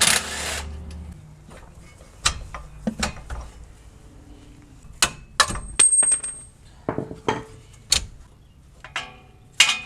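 Metal hand tools and loose parts clinking and knocking at irregular intervals during hub and brake disassembly, with one brief ringing metallic ping about six seconds in.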